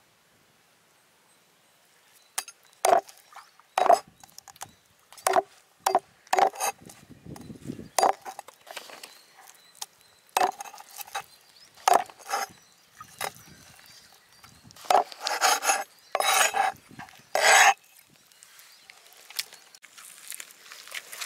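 A knife knocking sharply and irregularly on a wooden chopping board, roughly once a second, with a few longer scraping strokes near the end.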